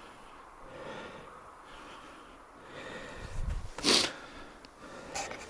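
A person breathing heavily through the nose and mouth in a steady rhythm of about one breath a second, with one sharp, loud snort about four seconds in.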